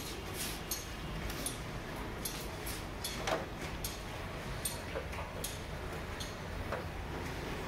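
Scattered light clicks and knocks, unevenly spaced, from hands arranging a whole marinated lamb on a round metal grate, over a steady low hum.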